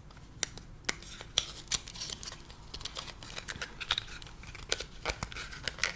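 Cardboard advent calendar door and the packaging inside being opened close to the microphone: irregular tearing, crinkling and sharp clicks.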